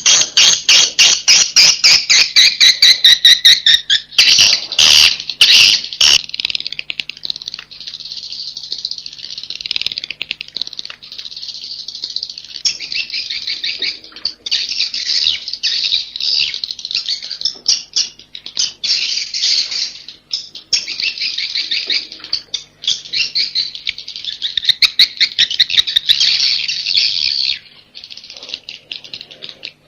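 Swiftlet roosting call ('suara inap walet'): many edible-nest swiftlets twittering in a dense, continuous chirping chorus, with a run of fast, evenly spaced clicking chirps in the first few seconds. This is the settling-in call played to lure swiftlets to roost.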